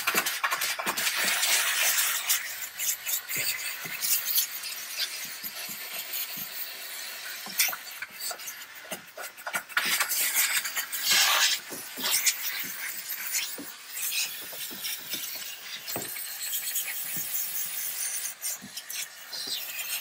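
Steam cleaner wand with a brush tip blasting steam into a car's engine bay: a steady, high hiss with many short crackles and spits running through it.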